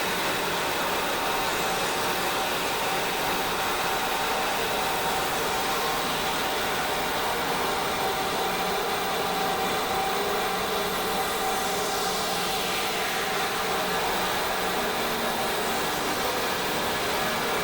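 Space-style 'magnetosphere' sonification: a steady hissing, humming drone with faint held tones underneath. About two-thirds of the way through, a faint whistling sweep glides down and back up.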